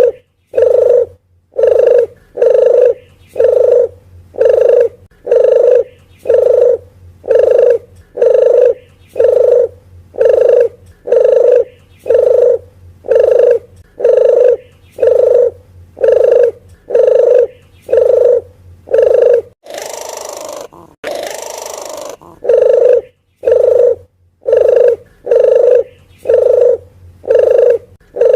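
Recorded puter geni dove cooing over and over, about one low coo a second, played as a lure call. About twenty seconds in the coos pause for a short noisy hiss, then carry on.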